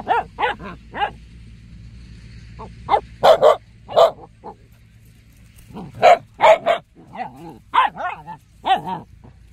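Dogs play-barking while wrestling: short, sharp barks in quick runs, a few at the start, a burst about three seconds in, and a longer string from about six seconds on, with pauses between.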